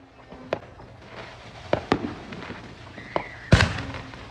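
Fireworks going off all around: several sharp bangs over a steady background rumble of more fireworks, with two close together near the middle and the loudest one about three and a half seconds in.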